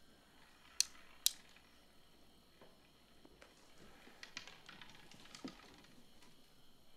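Two sharp clicks about half a second apart, then a scatter of fainter light clicks and taps a few seconds later.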